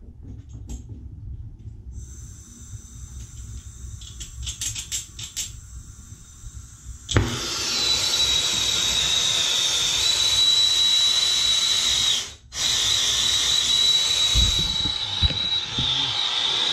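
Hose-fed soldering torch with a small number-three tip: gas starts hissing faintly, a quick run of clicks follows, and about seven seconds in the flame lights with a sudden pop. It then burns with a steady loud hiss and a high whistle, which briefly drops out about twelve seconds in.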